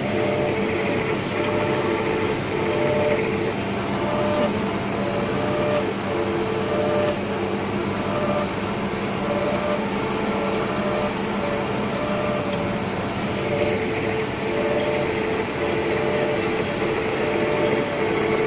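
Steady industrial machinery noise: a constant mechanical hum with a dense rushing noise and a few tones that pulse on and off in a repeating pattern.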